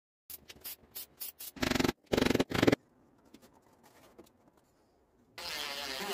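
Aerosol spray can of lacquer spraying in several short bursts, then three longer, louder ones. Near the end a cordless drill/driver runs steadily for about a second.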